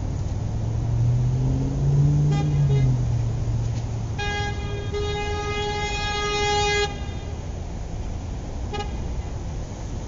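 Car sound effect: an engine running steadily, its pitch rising and falling around two seconds in, with horn toots. A short toot comes a little over two seconds in, a long horn of nearly three seconds starts about four seconds in, and a brief toot comes near the end.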